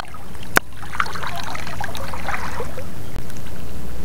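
Shallow seawater trickling and splashing, busiest from about one to two and a half seconds in, with a single sharp click about half a second in.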